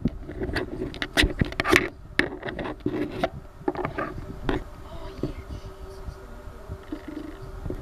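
Scattered sharp knocks and scrapes in an empty room, many in the first four seconds, then a steady faint buzz for the last three seconds.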